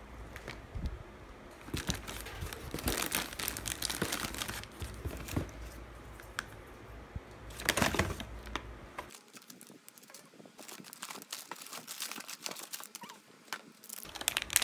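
Plastic packaging crinkling and rustling as small wrapped snack packets are handled and pulled out of a box, loudest about eight seconds in, then lighter crackling as a single packet is handled.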